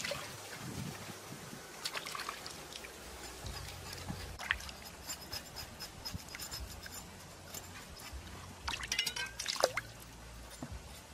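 Water splashing and dripping as a plucked duck carcass is rinsed and handled in a shallow stream, with scattered sharper splashes and a short cluster of them near the end.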